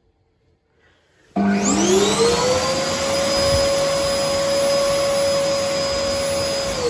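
World Dryer Airforce hand dryer starting about a second and a half in: its motor whine climbs quickly to a steady pitch over a loud rush of air, then starts to wind down with falling pitch at the very end.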